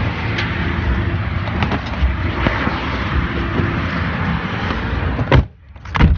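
Steady car-cabin noise, a low even rumble from the running car. A sharp knock comes about five seconds in, and another just before the end.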